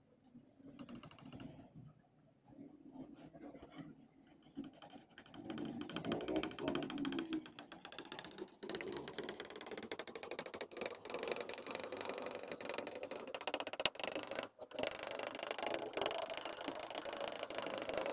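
Metal palette knife scraping through and spreading thick acrylic paint on a smooth surface, a dense run of small clicking scrapes. It is faint at first and grows louder from about five seconds in as the mixing gets going.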